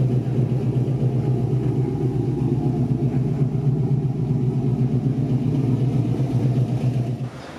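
Truck engine running at a steady speed on a test drive of a freshly installed transmission: an even, low drone that cuts off suddenly near the end.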